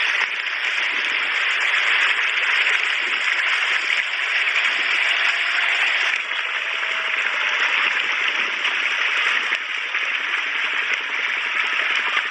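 A dense crowd of hybrid mangur catfish splashing and thrashing at the surface of shallow pond water in a feeding frenzy as feed is thrown to them, a continuous, even churn of water.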